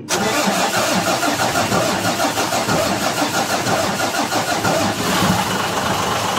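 A Mitsubishi Fuso 6M70 inline-six diesel engine comes to life abruptly and runs steadily, with a fast, even clatter. It starts on an attempt after a freshly refitted injector, meant to cure its hard starting.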